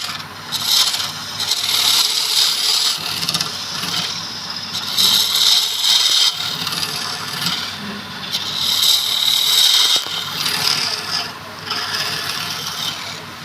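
Wood being worked on a spinning lathe: a tool scraping or rasping against the turning wood in about four passes of a second or two each, with short breaks between.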